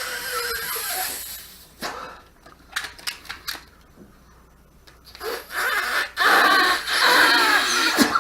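Rubber balloon squeaking and squealing, a short stretch at the start, a few clicks, then a longer, louder stretch of wavering squeals from about five seconds in.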